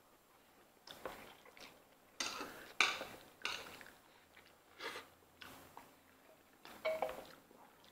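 Close eating noises: irregular bouts of chewing and noodle slurping, with chopsticks and lobster shell clicking against an aluminium foil pan. The loudest cluster comes about three seconds in.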